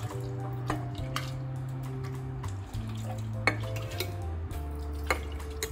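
Steel ladle clinking against a glass jar and steel pan while fruit in syrup is spooned in: about four sharp clinks, the loudest near the middle. Background music with a steady low bass line runs underneath.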